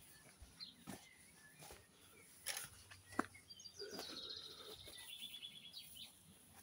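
Faint outdoor quiet with a small bird singing a rapid trill of repeated high notes for about two seconds, starting a little past the middle, and a few soft knocks before it.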